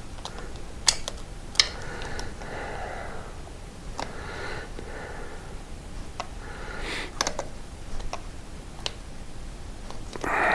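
Scattered light clicks and taps at irregular times, a few sharper than the rest, from things being handled at a motorcycle chain.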